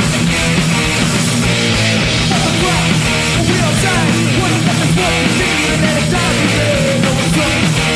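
Hardcore punk band playing live: loud distorted electric guitar, bass and drums, with a vocalist shouting into the microphone.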